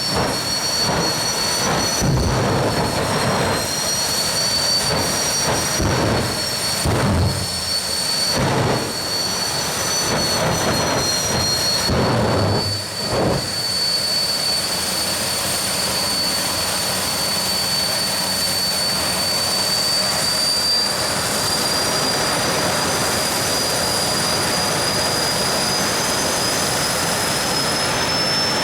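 Supercharged nitromethane drag racing engines running loud, with uneven bursts for about the first half, then a steady, unbroken noise.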